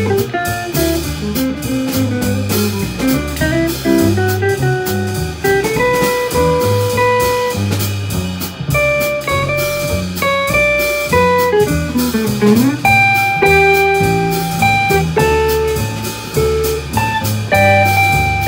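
Live jazz trio: an acoustic guitar plays single-note melodic lines over a plucked upright double bass and a drum kit keeping time on the cymbals.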